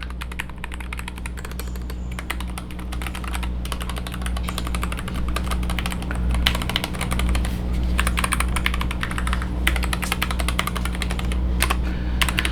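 Fast typing on a Royal Kludge RK N80 low-profile mechanical keyboard: a dense, rapid clatter of keystrokes that grows louder about halfway through, over a steady low hum. The clack is light enough that its owner says it doesn't sound like a mechanical keyboard.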